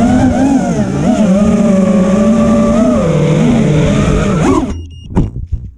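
6S FPV racing quadcopter's motors and propellers whining, the pitch wavering up and down with throttle, heard through the onboard camera's microphone. About three-quarters of the way through the whine cuts off, followed by a few short knocks as the quad comes down in the grass.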